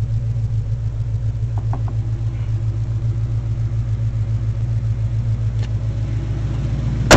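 Ford 400M V8 of a 1981 Ford F-350 idling steadily, heard from inside the cab as a low rumble with an even pulse. A single sharp knock comes near the end.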